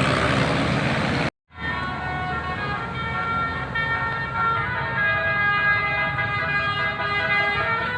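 About a second of loud rushing vehicle noise that cuts off abruptly, then a bus's musical telolet basuri horn playing a tune of long held notes that change every second or two.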